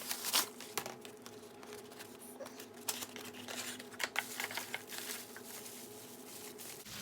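Package being opened by hand: irregular crinkling and rustling of the wrapping, with scattered small clicks and taps, over a faint steady hum.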